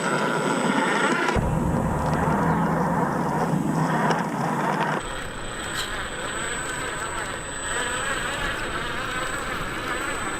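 Electric RC truck driving, its motor and gears giving a buzzing whine. The sound changes abruptly twice, about a second and a half in and about five seconds in.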